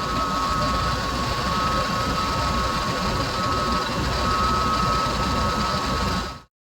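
Portable sawmill running steadily with its engine and blade cutting through a log, with a faint steady whine over the machine noise; the sound drops away sharply near the end.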